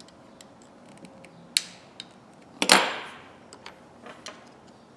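Small metal clicks and taps as a ring is worked into the head of a Stanley 89818 3/8-inch ratchet with needle-nose pliers, with a louder clack near the middle.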